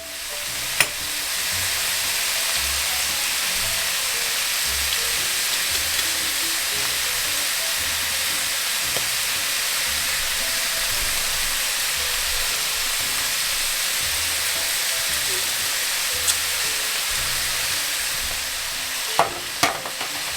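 Duck frying in a pot with garlic and ginger, a steady sizzle. A few sharp knocks from the stirring spoon against the pot come about a second in and again in a cluster near the end.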